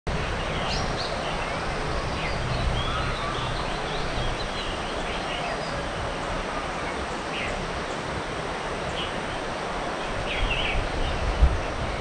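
Birds chirping and whistling in short calls over a steady rushing outdoor noise, with a brief low bump near the end.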